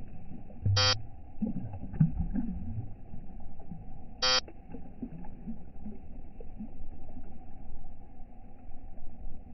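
Two short buzzy beeps about three and a half seconds apart over a muffled, uneven low rumble.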